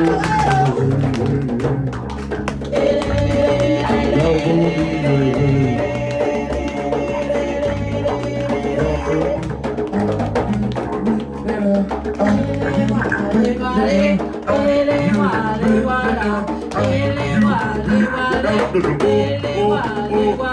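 Live band music: a bass guitar line and hand-drum beats under voices singing into microphones, with no words that carry through.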